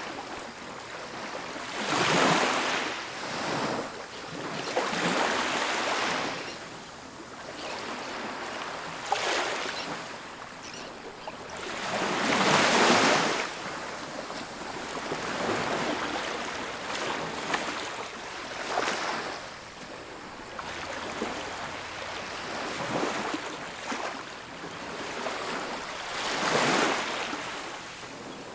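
Ocean surf: waves breaking and washing up a beach, swelling and fading every few seconds, the biggest wash near the middle.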